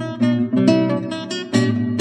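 Acoustic guitar music: a run of plucked notes and strummed chords, each note starting sharply.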